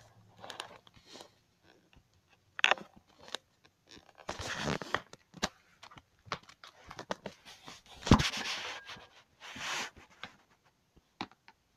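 Handling noise: scattered rustling, scraping and knocks as the phone and toy figures are moved about by hand, the loudest a thump about eight seconds in.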